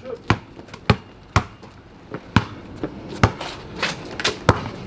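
A basketball bouncing on a hard floor: about seven sharp thuds at uneven intervals of roughly half a second to a second.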